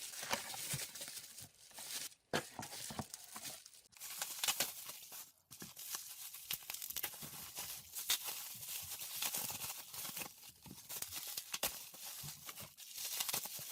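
Packaging being unwrapped by hand: irregular crinkling, rustling and tearing of plastic wrap, in uneven spurts with short pauses.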